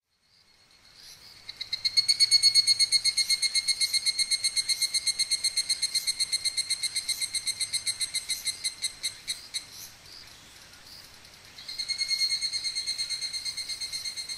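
Evening cicada (higurashi, Tanna japonensis) singing its ringing 'kana-kana-kana' call, a rapid pulsed trill of about five pulses a second. It swells in, then fades away over several seconds. After a short pause a second phrase starts up again near the end.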